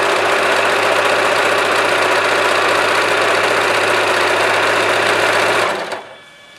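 Usha Janome Allure electric sewing machine running steadily at speed, sewing the 'E' heartbeat decorative stitch, then stopping shortly before the end.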